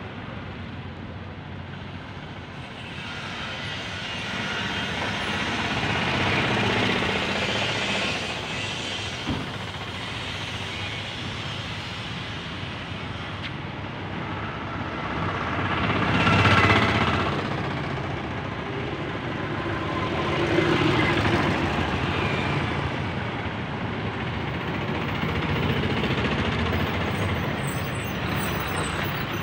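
Road traffic on a town street, vehicles passing one after another in swells of tyre and engine noise; the loudest passes by about halfway through.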